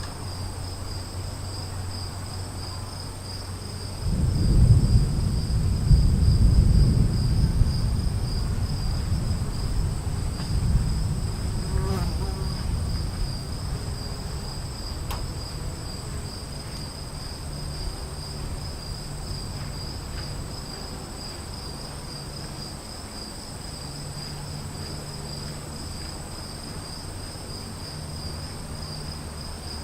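A low rumble of thunder rolls in about four seconds in, loudest over the next few seconds and dying away by about fourteen seconds. Under it, a steady high chorus of insects trills on, one part of it pulsing.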